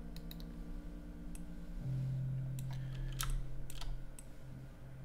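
Scattered clicks of a computer keyboard and mouse, about eight in all, several grouped a little past three seconds in. Under them is a steady low hum that gets louder about two seconds in.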